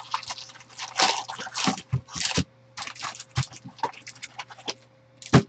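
Foil-wrapped trading card packs crinkling and a cardboard hobby box scraping as the packs are pulled out by hand, in short irregular rustles. There is a sharp knock near the end.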